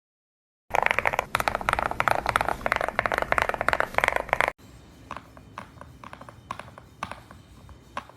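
GMK67 65% mechanical keyboard being typed on fast, a dense run of loud key clacks. After an abrupt cut, slower and quieter single key presses follow.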